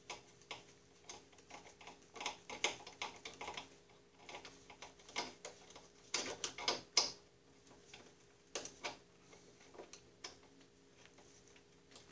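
Screwdriver tightening a boot clamp: a run of small, irregular clicks and ticks, with a cluster of louder clicks about six to seven seconds in.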